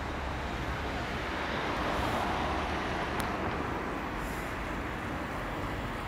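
Rushing noise of a passing road vehicle over low traffic rumble, swelling about two seconds in and then easing off, with one sharp click a little past the middle.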